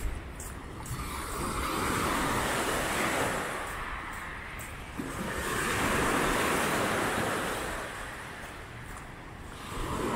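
Small waves washing onto a Lake Michigan beach. The hiss swells and fades in a few slow surges, over a low rumble of wind on the microphone.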